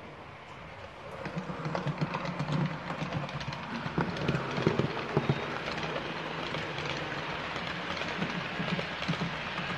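Model train running past close by: a rolling hum with a dense run of small clicks from the wheels on the track. It grows louder about a second in.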